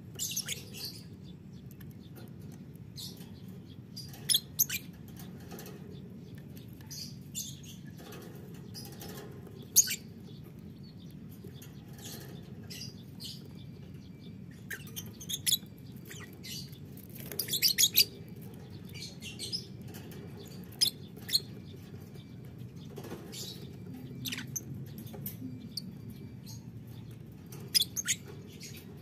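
Caged Fischer's lovebirds giving short, sharp, high chirps and clicks scattered through, with a quick cluster of several about two-thirds of the way in, among small scuffles of wings and feet in the wire cage. A steady low hum runs underneath.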